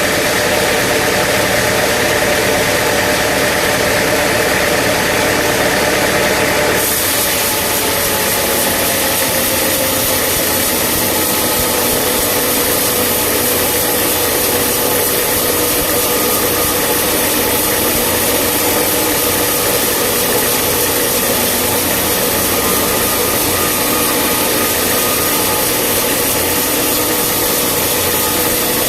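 Sawmill machinery running: a steady engine drone with dense mechanical noise. The sound changes character abruptly about seven seconds in.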